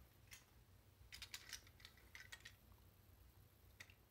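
Near silence broken by faint clicks and light rattling of small plastic toy combine parts being handled, in a quick cluster about a second in, with single clicks just after the start and near the end.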